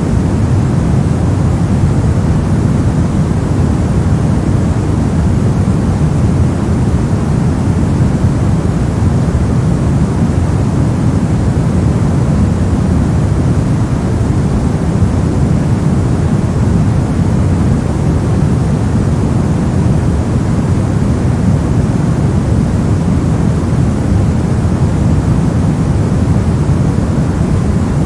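Continuous synthetic noise for sleep, steady and unchanging, with most of its weight low down, so it sounds like a deep rushing hiss rather than a bright one.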